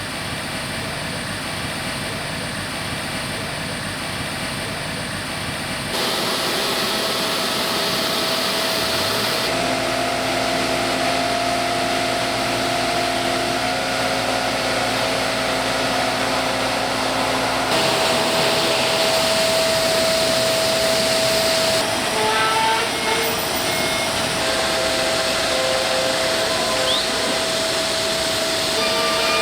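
Steady noise of a cargo aircraft and airport ground equipment running, with a constant whine throughout. The mix shifts abruptly several times.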